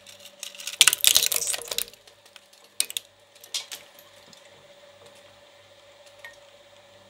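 Steel cutter blades of a small twin-shaft shredder crunching up a die-cast Hot Wheels toy truck: a dense run of cracking and crackling for about a second and a half, then a few last snaps. A steady hum of the running shredder lies underneath.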